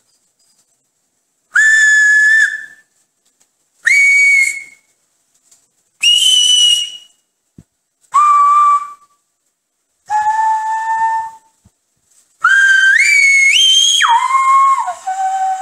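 Silbo Gomero, the whistled language of La Gomera: a man whistles the five vowels as five separate notes of about a second each, the pitch climbing over the first three and dropping low for the last two. He then whistles them in one continuous breath, stepping up in pitch and back down.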